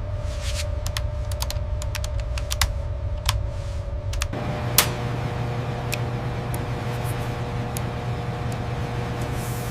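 Scattered sharp clicks over a steady low mechanical hum; the hum changes about four seconds in.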